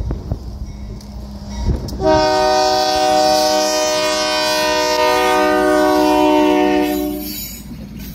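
Union Pacific diesel locomotive 5716's air horn sounds one long, loud, multi-note blast for about five seconds, starting about two seconds in, as a grade-crossing warning. Under the horn is the rumble of the approaching locomotive and train.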